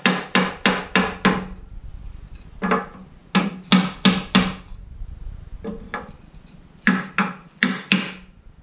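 Hammer striking a sacrificial wooden block to drive an oak stair tread home into the routed housings of the stringers. About fifteen sharp knocks come in groups of two to five, each with a short low ring from the staircase.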